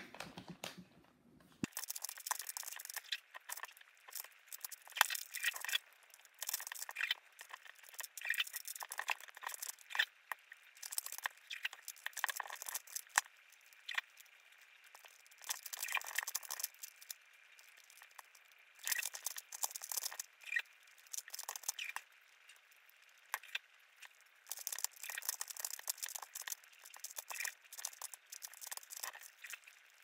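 Plastic layers of a Cosmos cube, a Rubik's-type puzzle cube with holographic stickers, being turned quickly by hand: rapid clicking and scraping in runs of turns with short pauses between them.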